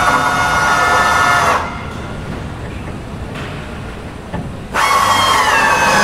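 Drill drilling out rivets in the aluminium skin of a Lancaster wing's trailing edge: a high whine, its pitch dipping slightly, that stops about one and a half seconds in and starts again near the end.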